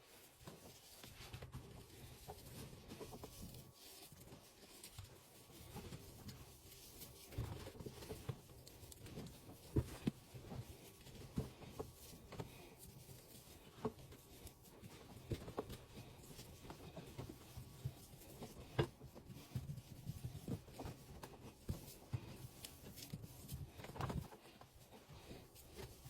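Laundry detergent powder being handled, with soft, irregular taps and rustles over a low hum.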